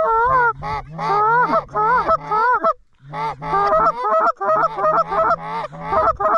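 Goose call blown hard in a fast run of honks and clucks, with a short break about three seconds in and quicker clucking after it, calling geese in to the decoys.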